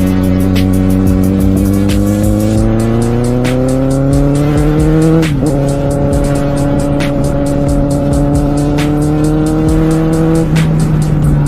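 Kawasaki Z750R inline-four engine heard from on board, rising in pitch under acceleration. It changes up a gear about five seconds in, pulls again, then drops in revs near the end.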